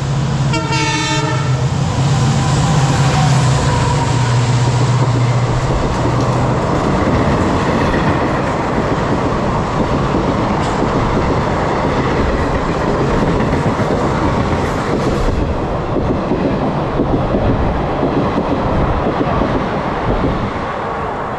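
A train passing at speed through a station, with continuous wheel-on-rail rumble and clatter. A strong steady low tone sounds over it for the first six seconds or so, then stops.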